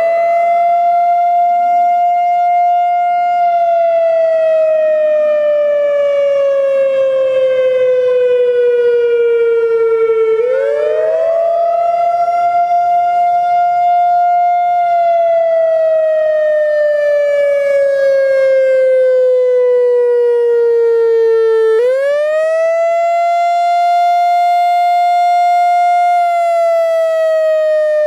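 Whelen WPS-3000-series electronic tornado siren sounding a wail: the tone climbs quickly, holds high for a few seconds, then slides slowly down, starting over about every eleven seconds, with fresh climbs about ten and twenty-two seconds in.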